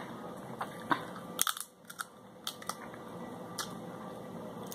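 Snow crab leg shell being cracked and picked apart by hand, a series of sharp cracks and snaps spread over the first few seconds.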